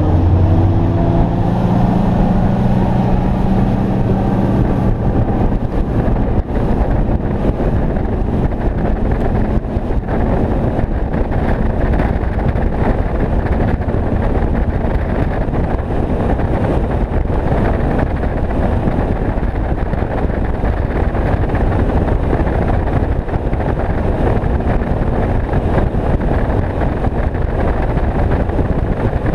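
Bass boat's outboard motor running at high speed, with wind buffeting the microphone. The engine's pitch climbs over the first few seconds as the boat comes up to speed, then holds steady.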